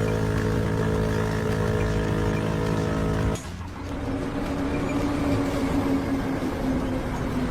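An engine running steadily at constant speed. About three seconds in it cuts abruptly to a different, noisier engine sound whose pitch rises slowly.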